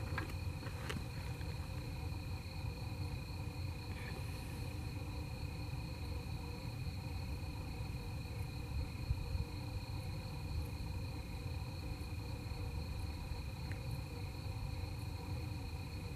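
Crickets trilling steadily, two unbroken high-pitched tones, over a low steady rumble.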